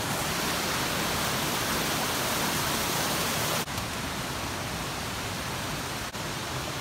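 Rainbow Falls, a waterfall running fast, rushing steadily as a dense, even hiss of falling water; the sound drops a little in level about halfway through.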